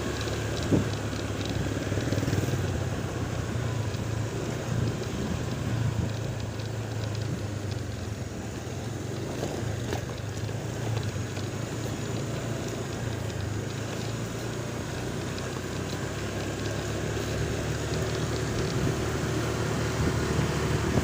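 A motor vehicle's engine running with a steady low hum, with wind noise on the microphone.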